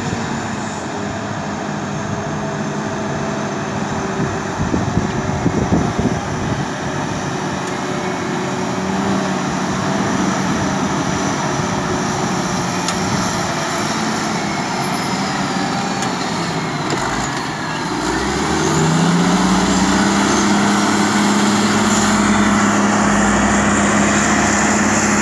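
Caterpillar 627G twin-engine wheel tractor-scrapers, running in push-pull pairs, with their diesel engines pulling steadily. About three quarters of the way through, one engine note rises in pitch, gets louder and holds there as the machines pass close.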